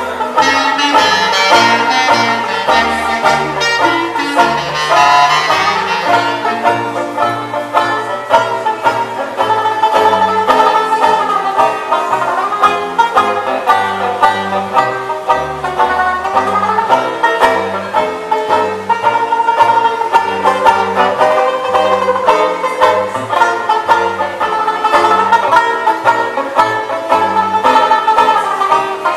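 Dixieland jazz trio playing: a banjo takes the lead with steady strummed chords and melody over a plucked double-bass line. An Albert System clarinet is heard in the first few seconds, then drops out.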